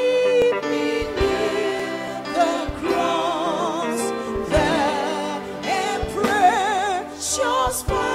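Live gospel worship music: a singing voice with a wide vibrato over sustained instrumental chords, with occasional sharp percussive hits.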